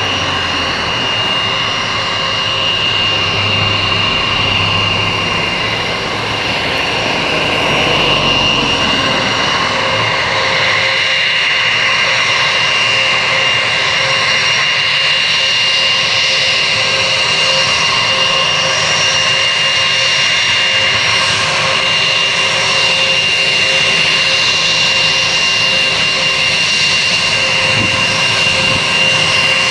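Twin turbofan engines of an Airbus A321 airliner running at taxi power: a steady jet rumble with a high, even fan whine, growing slightly louder about eight seconds in.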